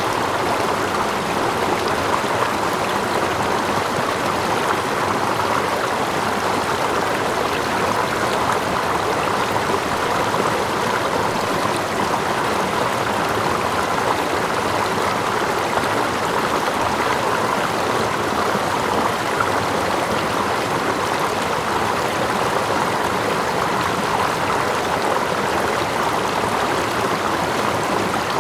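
Steady rush of stream water running, with water lapping close by, an even, unchanging flow.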